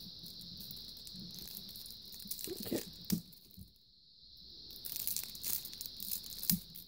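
Plastic wrapping on a deck of playing cards being cut with a knife and torn open, crinkling and rustling, with a sharp click about three seconds in and another near the end.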